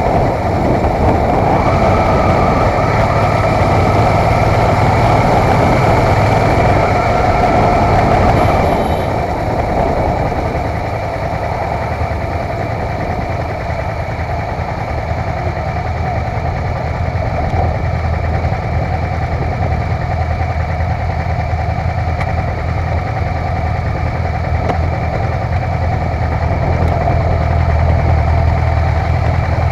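Motorcycle engine running at low speed, with a rushing noise over it that drops away about nine seconds in, then running steadily at idle.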